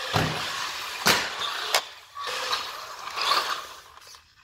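Haiboxing HBX Transit 1/12-scale RC crawler's 390 electric motor and two-speed gearbox whining as the car drives, with sharp knocks about a tenth of a second in, about a second in and near two seconds, then fading near the end.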